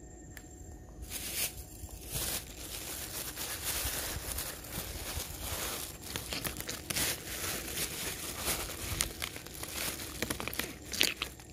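Close crinkling and rustling handling noise, dense with small crackles, starting about a second in and going on for about ten seconds.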